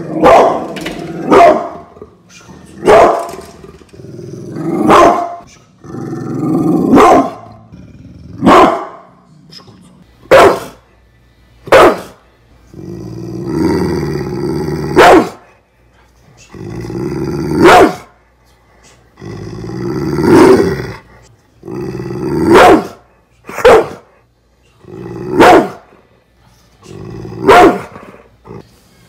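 Pit bull dogs barking loudly, about fifteen single barks spaced a second or two apart. A couple of them are led in by a longer low growl.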